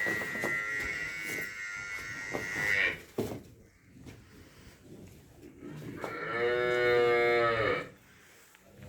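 Cattle mooing: one long call in the first three seconds, then a second call about six seconds in that rises and falls in pitch over about two seconds.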